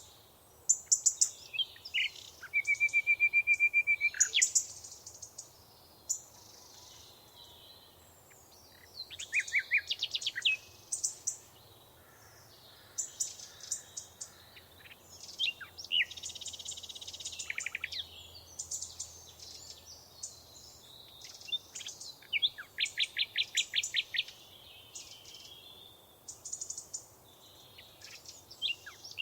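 Several songbirds singing and calling in turn: bright chirps and fast trills, including a rapid trill held on one pitch about three seconds in and further trills around ten, seventeen and twenty-three seconds in, over a faint steady hiss.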